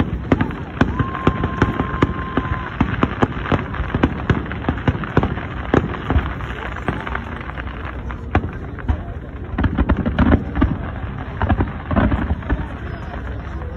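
Fireworks display going off: a rapid, continuous run of bangs and crackles from bursting shells. About a second in, a steady whistle holds for roughly two seconds.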